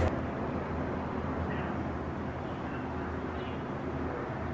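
Helicopter flying, a steady, really loud drone of rotor and engine.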